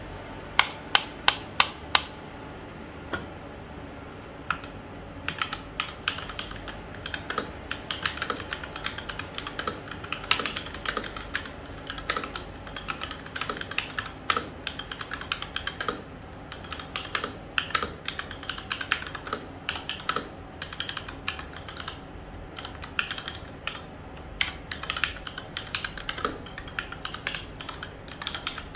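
SteelSeries Apex 7 TKL mechanical keyboard with linear red switches being typed on. Six sharp, louder clacks in the first two seconds are followed by a short pause, then steady, fast, irregular typing. It has the typical mechanical-keyboard clack, quieter than brown or blue switches and without a click.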